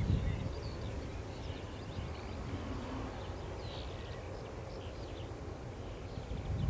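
Wind buffeting the microphone in a low rumble, gusting at the start and again near the end, with birds chirping faintly in the background.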